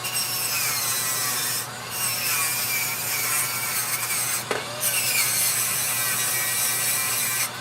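Small rotary tool spinning a little green abrasive wheel against a carved wooden chess piece, a steady hum with an abrasive rubbing sound, cleaning off seams. The rubbing drops out briefly about two seconds in and again about four and a half seconds in.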